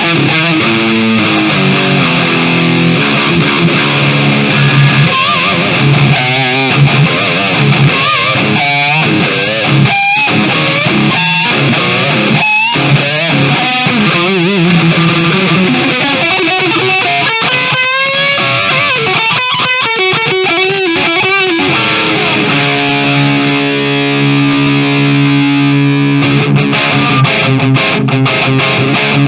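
Kramer Baretta Special electric guitar played through an EVH 5150 amp head with the amp's own distortion and no effects, heard straight from the cabinet. It plays riffs and single-note lines with wide vibrato a little past the middle, then a held chord near the end.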